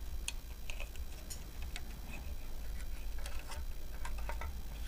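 Light, irregular clicks and taps of scale-model parts being handled as a wiring harness is threaded through holes in a model firetruck's body panel, over a steady low hum.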